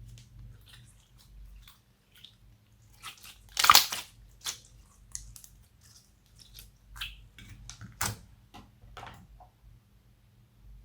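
Slime being squeezed and worked by hand, giving irregular sticky clicks and crackles, with louder crackling bursts about a third of the way in and again past the middle.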